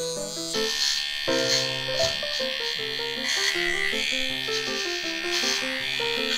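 Small electric pet clipper buzzing as it trims the fur between a kitten's paw pads, under background music with a melody.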